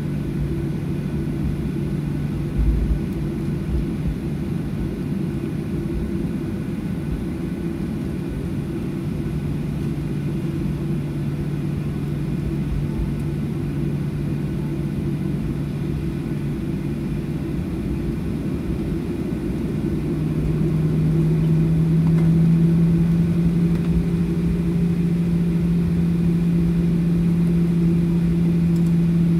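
Boeing 737-800's CFM56-7B jet engines running with a steady hum; about twenty seconds in the hum rises a little in pitch and the sound gets louder, as the engine power is increased. A single low thump sounds about three seconds in.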